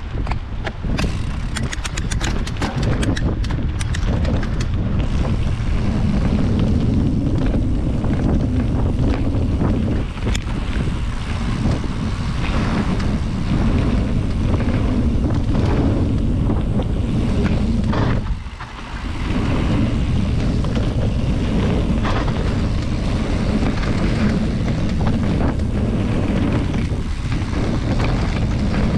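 A motor running steadily under way, with heavy wind buffeting the microphone. There are scattered clicks in the first few seconds and a brief dip in the noise a little past the middle.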